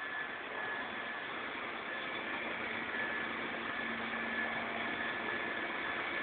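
Forklift engine running steadily while carrying a heavy machine on its forks, with a faint low hum showing for a couple of seconds midway.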